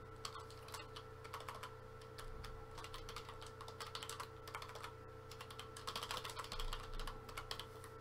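Typing on a computer keyboard: runs of quick, irregular keystrokes with short pauses between them, over a faint steady hum.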